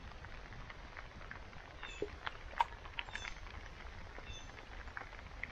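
Steady rain falling on the lake and shoreline, with scattered close drips and patters of drops. A few faint high chirps come about halfway through.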